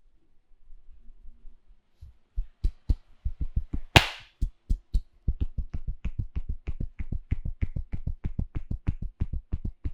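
Hands striking a person's head in rapid rhythm during a percussive head massage: soft, dull thumps at about four a second, starting a couple of seconds in, with one loud sharp slap about four seconds in.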